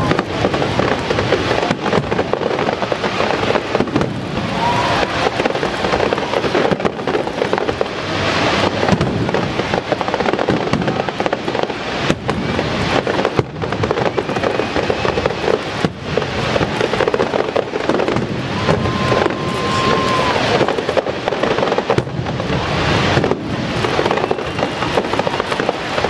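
Aerial fireworks display: a continuous barrage of shells bursting, with dense crackling and sharp reports overlapping throughout.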